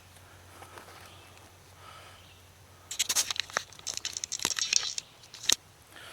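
Dry tinder being torn and crumpled, a run of crackling and tearing that starts about halfway through and ends in a sharp snap near the end, as material is prepared for a small campfire.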